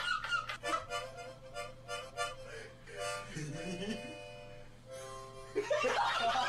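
Harmonica held in the mouth, sounding a quick series of short puffed chords, then longer held chords from about three seconds in.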